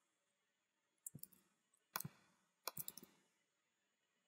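Faint computer mouse and keyboard clicks in three short clusters about a second apart, as text is copied and pasted.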